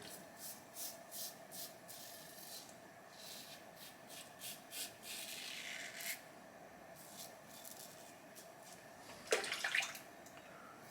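Karve CB safety razor with a Polsilver Super Iridium blade scraping through stubble in short strokes, one after another. A louder brief sound comes near the end. A faint steady hum runs underneath.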